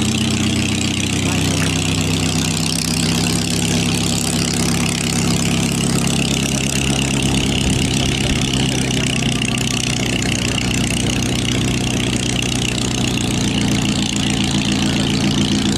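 Light aircraft's piston engine idling on the ground at low revs, a steady even drone whose pitch shifts slightly now and then.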